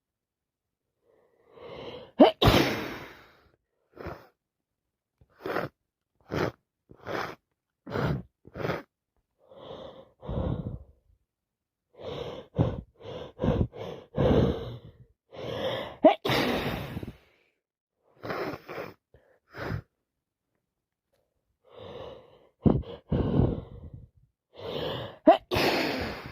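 A person with a cold sneezing repeatedly, with gasping in-breaths and sniffs between the sneezes. The loudest, sharpest sneezes come about two seconds in, in the middle, and near the end.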